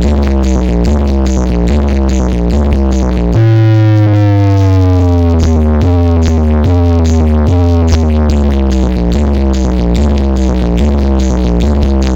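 Electronic DJ dance track with a heavy bass beat, played loud through a DJ sound-box system. About three seconds in, the beat stops briefly for a long deep bass note under falling synth tones, then the beat comes back.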